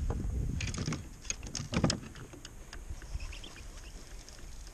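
Clicks and knocks of a fishing rod and baitcasting reel being handled in a plastic kayak while a fish is being played, over a low rumble. The knocks cluster in the first two seconds, the loudest near the two-second mark, then it goes quieter.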